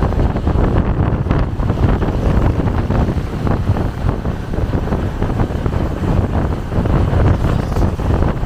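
Continuous low rumble of a moving vehicle with road noise, and wind buffeting the microphone.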